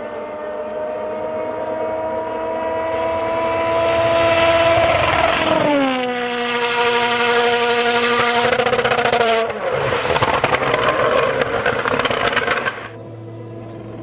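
Rally car engines at full speed. One car approaches with its note slowly rising, passes about five seconds in with a sharp drop in pitch, and runs on at the lower note. After an abrupt change near ten seconds, another car is loud and harsher until it cuts off, and then a more distant engine note is heard.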